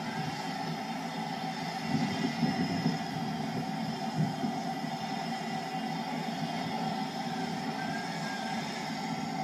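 Stationary steam tank locomotive in steam: a steady hum and hiss with irregular low rumbles, stronger a couple of seconds in.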